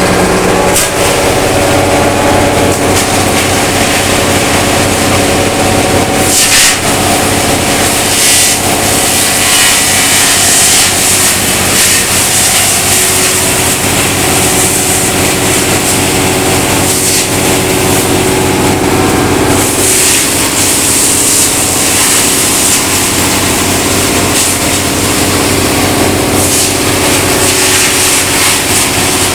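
Engine-driven wood chipper shredding wood veneer: the engine runs steadily under load, with several hissing surges as pieces of veneer are chipped.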